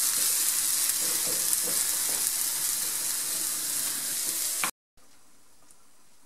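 Chopped leek and onion sizzling in hot oil in a frying pan while being stirred with a spatula. The sizzle cuts off abruptly about three-quarters of the way through, leaving only quiet room tone.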